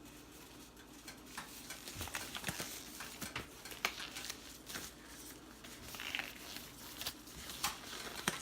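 Quiet, irregular clicks, taps and rustles of food and utensils being handled in a kitchen as salmon patty ingredients are prepared.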